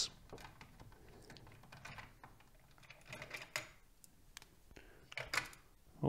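Faint, scattered clicks and small scrapes of a screwdriver backing out the screws of a motherboard's stock AM4 CPU cooler retention bracket and lifting the bracket away, with a few louder clicks in the middle and near the end.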